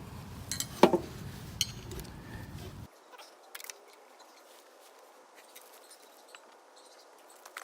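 Light clicks and taps of small metal and plastic lawnmower carburetor parts being handled and fitted back together, the sharpest click about a second in, then only faint scattered ticks.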